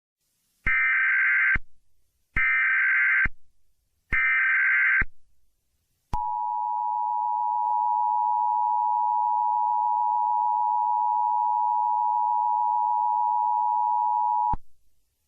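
Emergency Alert System SAME header: three short bursts of shrill data tones, about a second each, a second apart. They are followed by the EAS attention signal, a steady two-tone alarm held for about eight seconds that cuts off sharply.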